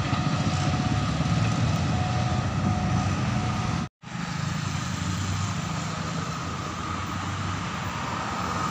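Motorcycle and road traffic engines running steadily. About four seconds in, the sound drops out briefly at an edit, then similar steady traffic noise resumes.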